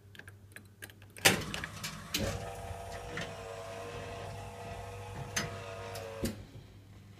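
A 1955 Rock-Ola 1448 jukebox's record-changing mechanism cycling. Light clicks lead to a loud clack, then the mechanism motor runs steadily for about four seconds while a 45 rpm single is carried from the magazine onto the turntable, ending with a clunk.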